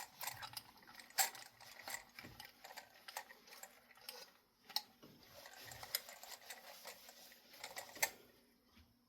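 Irregular small clicks, taps and scraping from hands working a bent metal ceiling-fan light kit back into shape.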